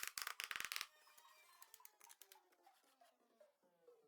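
A quick rattle of rapid clicks lasting about a second, then faint background music with a slowly falling line of notes.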